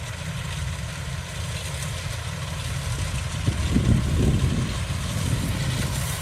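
Kubota DC-105X combine harvester running steadily with a deep engine rumble, briefly louder about four seconds in.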